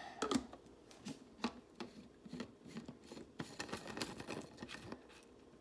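Plastic lid being fitted and twisted onto a plastic water bottle, a string of faint, irregular clicks and taps of plastic on plastic.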